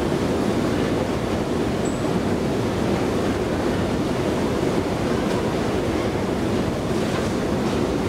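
Long escalator running while it is ridden: a steady, even rumble from the moving steps and drive.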